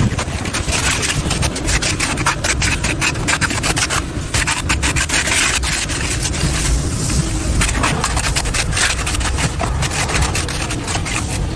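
A hand tool scraping and rubbing over concrete in quick, continuous repeated strokes.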